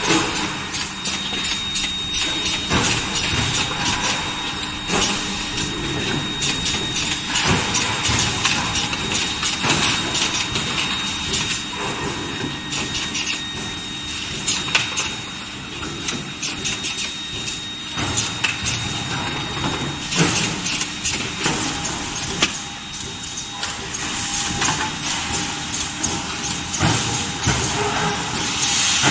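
Forging line with an induction heating furnace and presses running. Frequent short metallic clanks and knocks sound over a steady machine hum and a thin, steady high-pitched whine.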